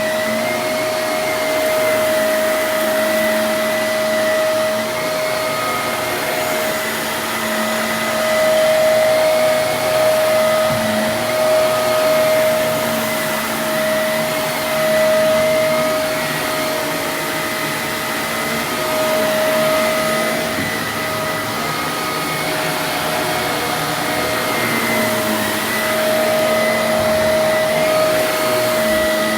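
Vacuum cleaner running steadily, a loud motor whine over a rush of suction air, its pitch wavering slightly as it is worked across the floor.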